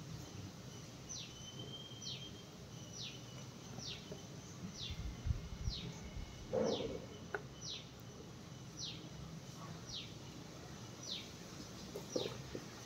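A bird repeating a short, high call that falls in pitch, roughly once a second. There is a soft thump just past the middle.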